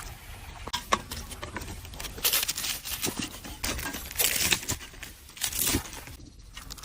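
Crispy fried food being handled and broken apart, crackling and tearing in short irregular bursts, the biggest about two, four and five and a half seconds in.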